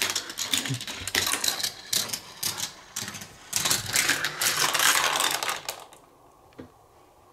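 Marbles rolling and clattering through a GraviTrax plastic marble run: a rapid, irregular stream of clicks and rattles that stops about six seconds in, leaving one lone click.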